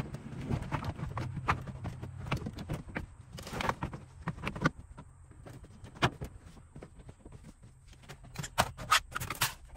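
Irregular clicks, taps and clatter of tools and parts being handled during car work, over a low steady hum. There is one loud knock about six seconds in and a quick run of clicks near the end.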